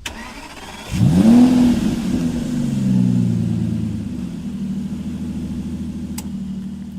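2005 Lincoln Town Car's 4.6-litre V8 starting: about a second in it catches and revs up quickly, then the revs ease down over a few seconds to a steady idle. A single sharp click a little past six seconds.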